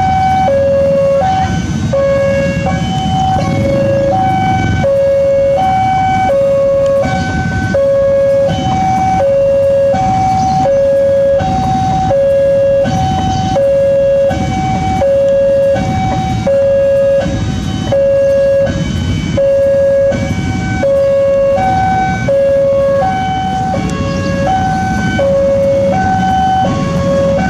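Railway level-crossing warning alarm sounding its electronic two-note ding-dong, a higher and a lower note alternating about once a second, over the low rumble of an approaching diesel locomotive.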